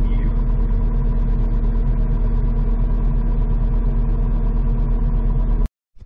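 Case TV450 compact track loader's diesel engine running steadily, heard from inside the cab: a constant deep hum with a fast, fine clatter over it. It cuts off suddenly near the end.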